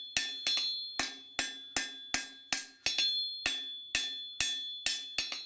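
Hammer blows on hot knife steel over an anvil as the blade tip is forged, about two and a half strikes a second, each with a bright metallic ring. The ringing comes as the steel cools toward dull black and grows too cold to keep hammering.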